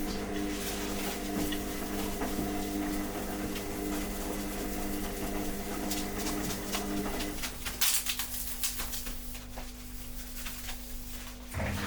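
Tissue rubbing and scrubbing over a metal print sheet, wiping off adhesive residue with acetone, in short scratchy strokes that come thickest in the middle. Under it runs a steady low hum that thins out for a few seconds near the end.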